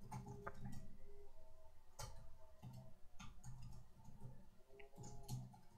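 Computer keyboard keys being typed: faint, irregular clicks.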